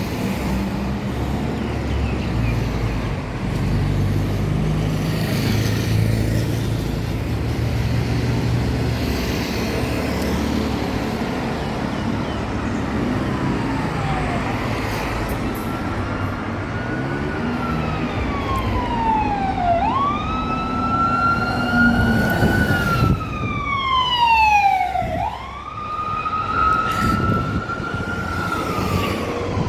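An emergency vehicle siren wailing in slow rises and falls of a few seconds each. It comes in faintly about halfway through and grows louder, over the low rumble of road traffic.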